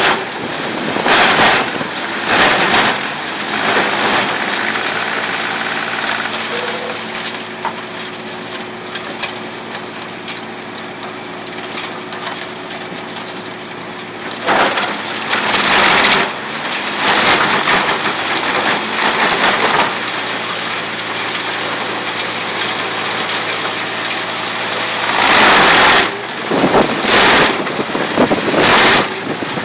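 Wood chipper running, its engine humming steadily, broken by loud crunching spells as wood is fed in and shredded: two short ones near the start, a longer run of them from about halfway, and another near the end.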